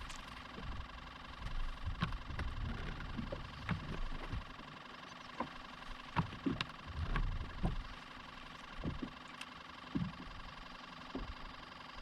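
Boat motor running steadily with an even hum, with scattered knocks and thumps over it.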